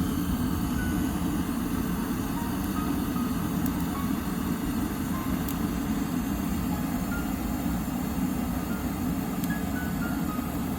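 Handheld gas torch burning with a steady roar as its flame is held on kindling under firewood.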